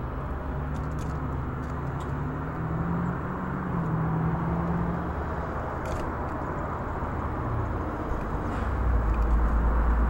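Motor vehicle engine running: a low hum rising and then falling in pitch over several seconds, with a deeper, louder rumble coming in near the end, over a steady background hiss.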